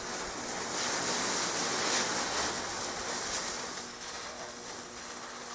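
Homemade gunpowder fuse mine fizzing with a loud rushing hiss that swells for about two seconds, then slowly dies down without bursting: a dud prototype firework.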